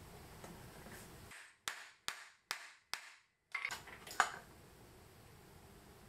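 Four sharp clicks about evenly spaced, then a quick cluster of clicks with the loudest near the end, from a hand tool being worked on a cable end; the background hiss cuts out completely between the first clicks.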